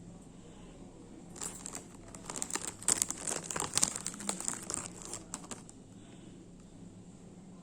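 Packaging crinkling and rustling as it is handled and opened, in a burst of crackles lasting about four seconds, loudest in the middle.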